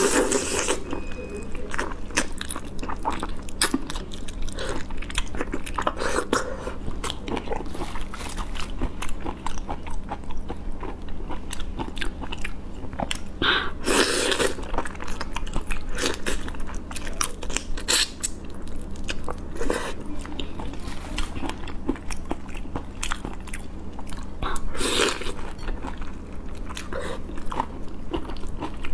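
Close-miked biting, crunching and chewing of whole shell-on prawns as the shells and heads crack between the teeth, a run of irregular crackles with a few louder crunches about a third of the way in and again near the end.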